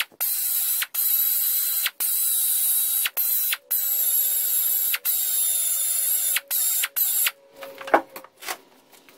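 Die grinder with a wire wheel running at a steady high whine, brushing flaking paint off an outboard lower unit's aluminium housing, in short runs with brief breaks about once a second. It stops about seven seconds in, followed by a few knocks.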